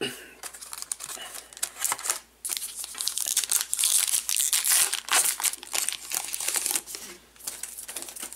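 A trading-card pack wrapper crinkling and crackling as it is pulled and torn open by hand. The crackle is densest and loudest around the middle.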